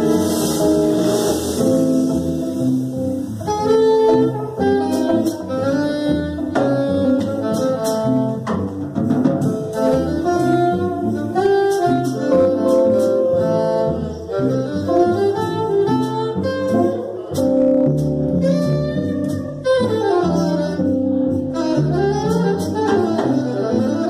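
Small jazz group playing live: an alto saxophone carries a moving melodic line over walking upright bass and a drum kit with cymbals, and a trumpet joins at the start.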